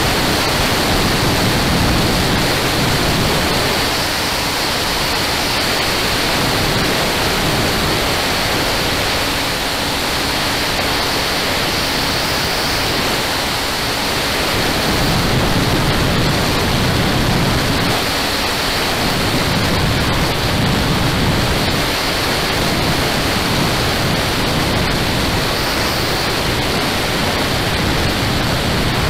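Steady rush of wind over the camera microphone of a Kawasaki KLR650 motorcycle at road speed. The lower rumble swells and eases slowly.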